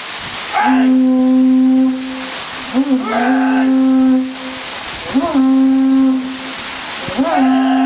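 Long drawn-out kiai shouts during waterfall training, four in a row, each starting with a quick upward scoop in pitch and then held steady for about a second and a half. They sound over the steady rush of the waterfall.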